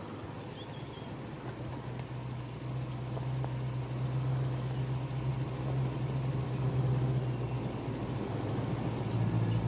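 Engine of a 4x4 safari vehicle driving off-road, a steady low drone that grows louder from about a second and a half in.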